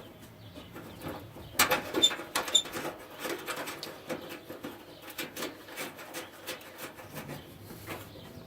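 Irregular clicks and light knocks of the Toyota Tundra tailgate latch and handle parts being handled and fitted back into place. Two short high chirps come about two seconds in.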